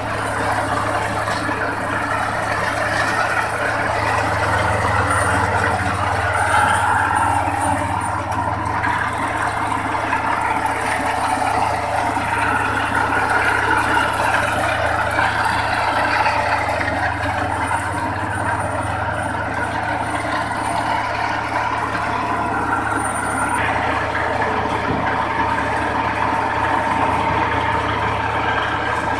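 Skyroad tracked rice combine harvester running steadily: a constant low engine hum under a broad, even machinery din.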